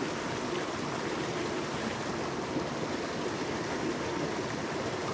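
Mountain stream rushing over rocks and small cascades: a steady, even wash of water.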